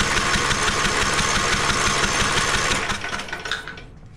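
Electric starter cranking the single-cylinder Briggs & Stratton 17.5 Intek engine with its spark plug out, air and fuel hissing from the open plug hole. It is clearing a combustion chamber the owner suspects is flooded. The cranking stops about three seconds in and dies away.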